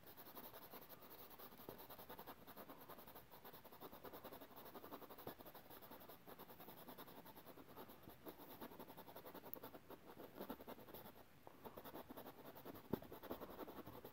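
Faint scratching and dabbing of a small paintbrush working oil paint onto stretched canvas, in many short strokes, with one sharper click near the end.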